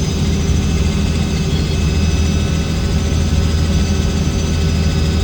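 Helicopter engine and rotor drone heard from inside the cabin, loud and steady.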